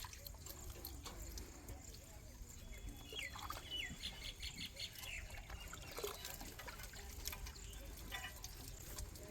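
Small birds chirping: a couple of quick downward-sweeping chirps and a short rapid trill, over a steady low rumble.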